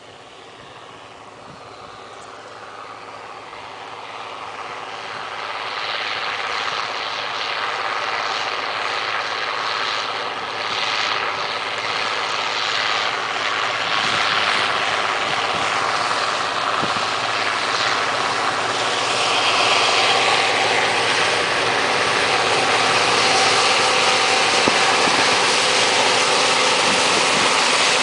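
Allis-Chalmers Gleaner L3 combine harvester running steadily, its engine hum and threshing noise growing louder over the first six seconds and again from about twenty seconds in.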